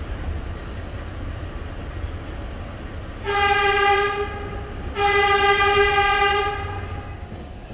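New York City subway train horn sounding two blasts, the first short and the second longer, fading at the end. Under it is the steady low rumble of the subway train running.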